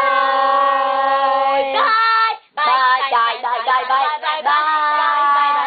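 A girl singing: a long held note, then a quick run of short notes about halfway through, ending on another held note.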